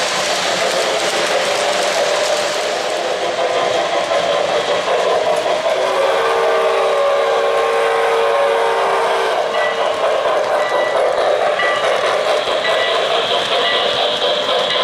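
O-gauge three-rail model trains rolling along the track with a steady rumble; about six seconds in, a model locomotive's sound system blows a long chime of several notes for about three seconds, followed by a faint high tone repeating about once a second.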